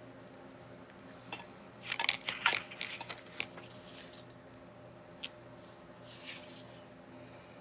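Small hard craft items clattering and clicking together on a work table, with some rustling: a quick burst of clicks about two seconds in, a single click later and a brief rustle near the end, over a faint steady hum.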